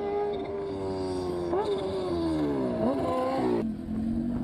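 High-revving racing engine at a high, steady pitch, then sinking in pitch with several sharp jumps back up near the middle. A lower, steady engine note takes over near the end.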